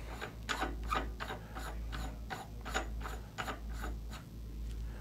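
Metal suppressor mount being spun down hand tight onto the suppressor's threads, giving a run of light clicks, about four a second, that stops near the end.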